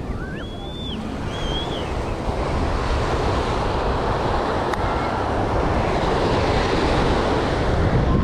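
Ocean surf breaking and washing up the beach, with wind rumbling on the microphone; the wash builds louder through the second half. A few short high calls sound in the first two seconds.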